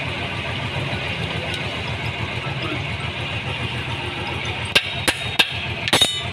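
An engine running steadily, with a low pulsing hum. Near the end come several sharp metal clicks as a bent steel rod pries at the crankshaft rear main seal in a tractor's cast-iron flywheel housing.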